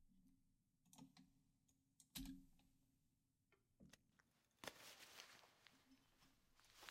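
Mostly near silence: a faint Foley track with a few soft, separate taps, then quiet rustling and scuffing from about two-thirds of the way in.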